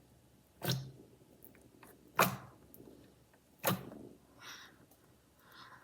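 Three short wet slaps of clicky slime being pressed and patted flat by hand, about a second and a half apart, with a couple of softer squishes near the end.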